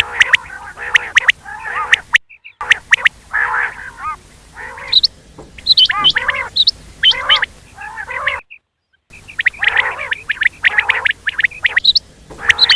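Quail calling over and over, a dense run of sharp clicky notes mixed with short warbling calls, broken twice by brief stretches of complete silence.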